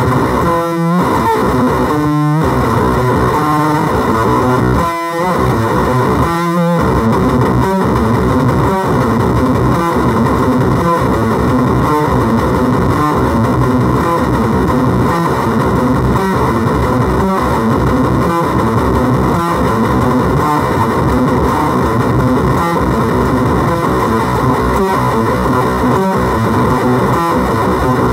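Electric guitar played through a FOWL Sounds Octagram fuzz pedal, giving a thick, distorted fuzz tone. There are short breaks between phrases in the first seven seconds, then the playing runs on without a break.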